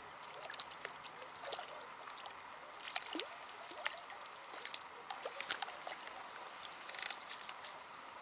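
Faint, irregular light splashes and ticks at the water's surface as a small roach is played in on a float rod.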